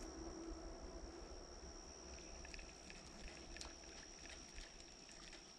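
Faint outdoor ambience: a low rumble of wind on the microphone and a steady high-pitched whine, with a few light ticks and rustles from about two seconds in.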